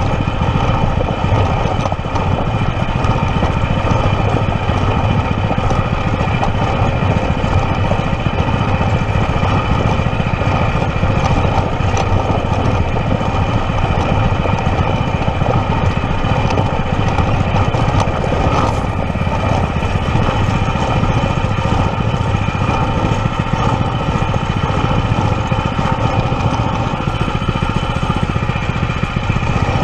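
Stock Predator 212 single-cylinder four-stroke engine running steadily, with no change in speed.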